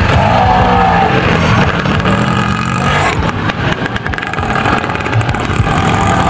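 Engine of a bajaj auto rickshaw running steadily, with a low hum under loud, noisy street-like sound that cuts off abruptly at the end.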